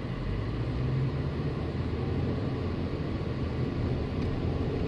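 Steady low background rumble with no clear events in it.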